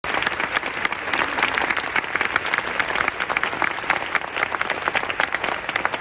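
Spectators in a football stadium applauding, many hands clapping steadily without a break.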